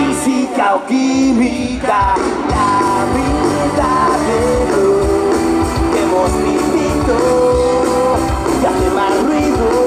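Live pop-rock cover band playing, with a steady beat, bass, and a melody of long held notes on top. The low end drops out briefly about a second in, then the full band comes back in.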